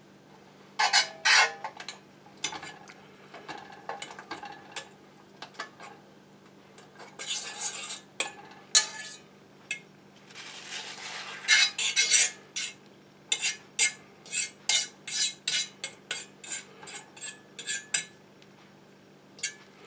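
Metal fork clinking and scraping against a cast iron skillet as it pushes clarified butter around to melt it. The clinks come irregularly throughout, with a few longer scrapes in the middle.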